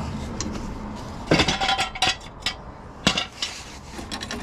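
Metal tools clanking and clinking against each other: a quick cluster of sharp clanks about a second in, one of them ringing briefly, then a single loud clank about three seconds in.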